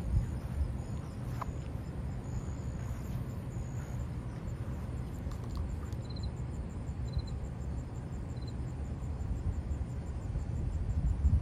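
Outdoor background noise: a steady low rumble, with faint short high chirps three times in the second half.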